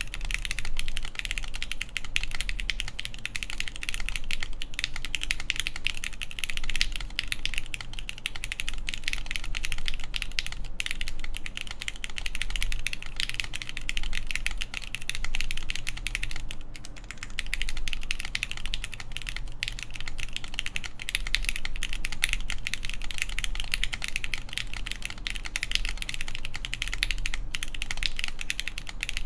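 Continuous typing on a Mode Tempo mechanical keyboard with lubed Gateron X linear switches in an aluminium plate, under CRP keycaps: a dense, fast stream of keystroke clacks, with a brief lull about two-thirds of the way through.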